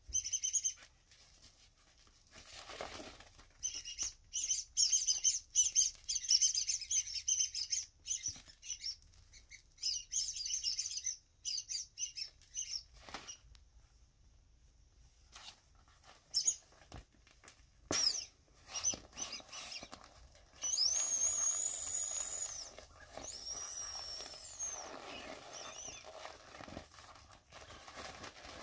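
Small inflatable vinyl bunny toys squeaking in repeated high bursts as hands squeeze and rub them. About two-thirds of the way through, a steadier, louder hiss with high sliding squeals comes in, as air is pressed out of a bunny and its vinyl crinkles.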